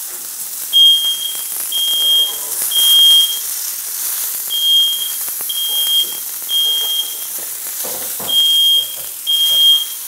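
Kitchen smoke alarm going off in its fire pattern: short high-pitched beeps in groups of three about a second apart, with a longer pause between groups. It has been set off by smoke from searing scallops.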